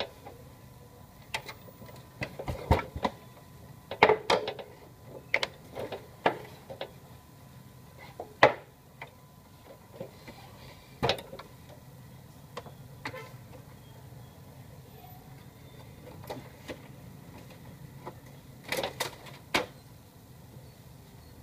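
Irregular plastic clicks and knocks from parts of an opened HP LaserJet Pro M225dw laser printer being handled, thickest in the first few seconds and with a quick cluster near the end, over a faint steady hum.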